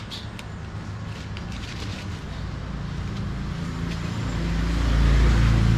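Motor vehicle engine running, a low rumble that grows louder from about four seconds in as it draws near.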